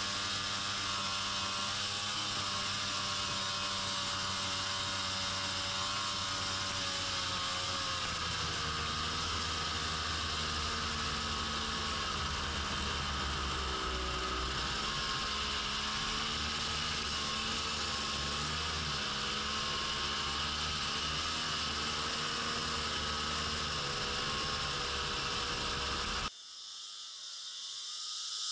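Snowmobile engine running steadily under the rider, its pitch shifting a little with the throttle, over a steady hiss. Near the end the sound drops away and a snowmobile is heard approaching from a distance, growing louder.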